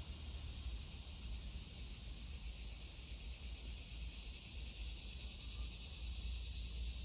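Steady chorus of insects chirring outdoors, with a constant low rumble underneath.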